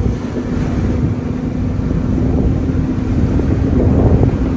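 Truck engine running with a steady hum while the truck drives over sand, with wind buffeting the microphone.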